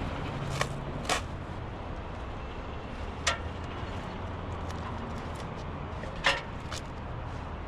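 A handful of sharp, irregularly spaced knocks, the loudest about three and six seconds in, over a steady low hum.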